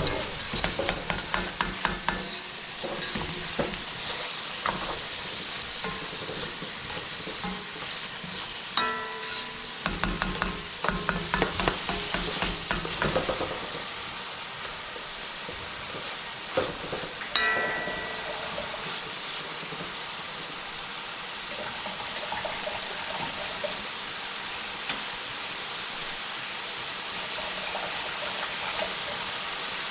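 Chopped onion, garlic, ginger, tomato and cilantro sizzling in hot oil in a pan, a steady hiss. A spoon scrapes and clinks against the pan in two spells of stirring, and there is one ringing metal clank about seventeen seconds in.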